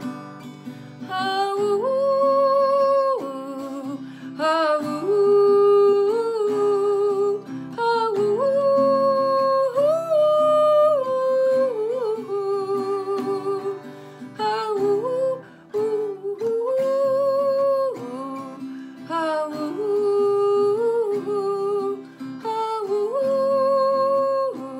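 A woman singing a wordless melody of long held notes with vibrato over a strummed acoustic guitar.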